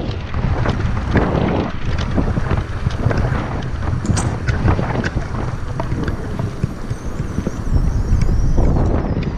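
Wind buffeting the microphone of a camera riding along on an electric moped, a loud rumbling rush with frequent small knocks and rattles.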